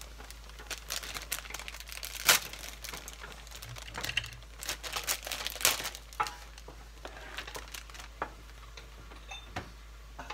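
Plastic meal-kit ingredient packets crinkling and rustling as they are handled. The sound comes as an irregular run of sharp crackles and clicks, with the loudest about two seconds in and a busy stretch in the middle.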